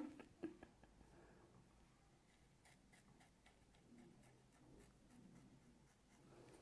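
Faint scraping and light ticks of a dermaplaning blade drawn in short strokes over the skin of the upper lip, against near silence. A sharp click at the very start, and a smaller one about half a second in, are the loudest sounds.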